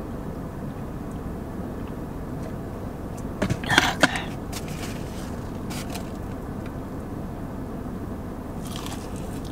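Steady low hum of a parked car's interior, with a few brief eating and drinking sounds: sipping through a straw and eating fried chicken fingers. The loudest of these comes about four seconds in.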